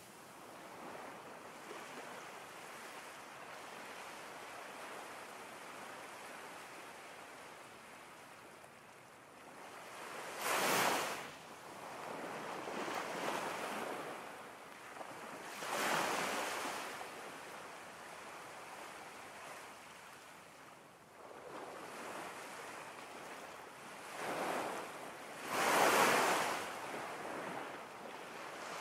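Ocean waves washing in: a steady rush of surf with a louder swell surging and falling away four times.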